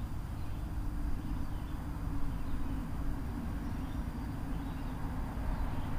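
Wind rumbling on an outdoor microphone, a steady low rumble with a faint low hum underneath.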